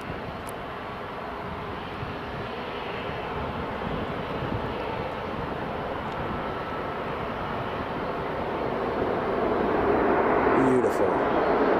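Airliner engine noise at an airport, a steady rushing that swells louder over the last few seconds as the aircraft draws nearer.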